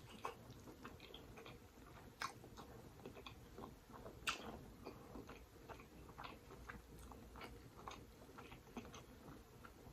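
Faint chewing and mouth clicks of someone eating close to the microphone, with a couple of sharper clicks about two and four seconds in.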